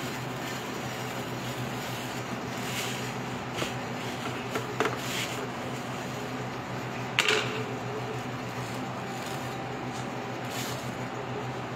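Steady hum and whir of café cooling machinery (refrigerated drink dispenser and air conditioner), with a couple of light knocks and one louder clatter about seven seconds in.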